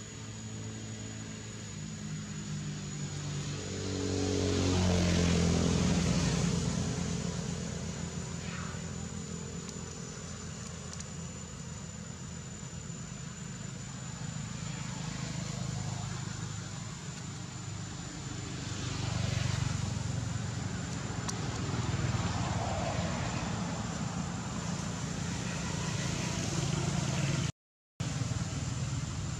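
Motor vehicle engine going by, rising in pitch and loudest about five seconds in, then a steady lower drone that swells again after about twenty seconds, with a thin steady high whine throughout.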